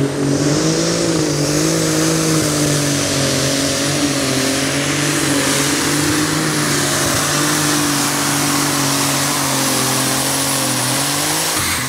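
Super Stock pulling tractor's turbocharged diesel engine running flat out under load pulling the brake sled, its note wavering slightly, with a thin high whistle above it. The engine sound drops away just before the end.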